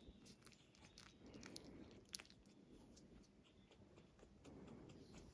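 Faint, irregular little wet clicks and smacks of a very young puppy mouthing and licking a finger, with one sharper click about two seconds in.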